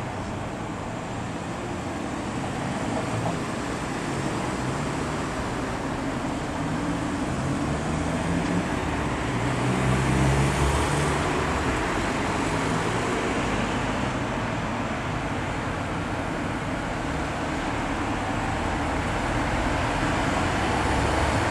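Steady outdoor hum of distant road traffic, with a low rumble that swells about ten seconds in and again near the end.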